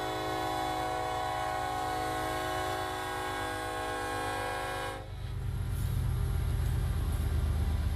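Kansas City Southern diesel locomotive's air horn sounding one long held chord for the grade crossing, cutting off suddenly about five seconds in. Underneath, the locomotive's diesel engine rumbles as the train rolls past, the rumble growing louder once the horn stops.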